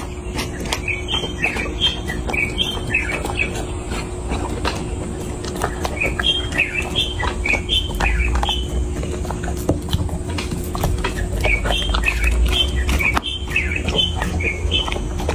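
A chocolate Labrador retriever eating a raw meat meal, chewing with a steady stream of sharp clicks and crunches. Small birds chirp in three runs of short high notes, near the start, midway and toward the end.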